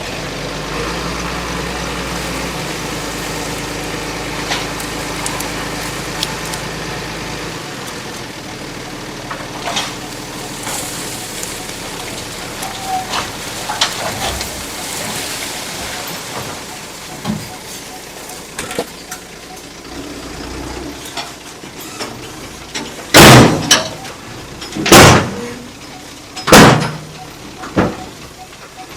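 A heavy machine's engine runs steadily for several seconds, then fades away. Near the end come three loud, sudden thumps about a second and a half apart.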